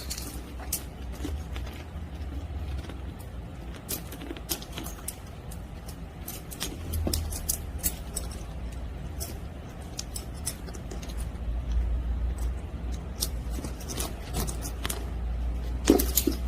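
A leather handbag being handled, with irregular light clicks and clinks of its metal hardware (D-rings and clasps) over a low rumble of handling noise.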